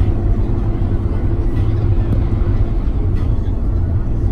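Tour bus driving, heard from inside the cabin: a steady low engine and road rumble. A faint steady hum sits on top of it and stops about two and a half seconds in.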